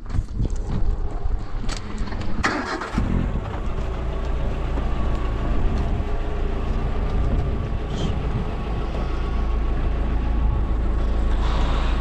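A motor vehicle's engine starts about three seconds in and then runs steadily at idle, after a few knocks.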